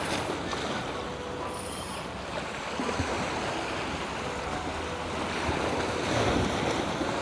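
Sea waves washing against rocks, with wind on the microphone; a wave surges louder about six seconds in.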